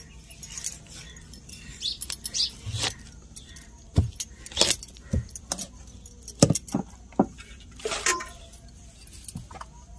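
Glass bangles clinking and a run of sharp knocks and scrapes as a pale green gourd is pushed down through an upright curved sickle blade and split in two. The halves are set down on a steel plate near the end.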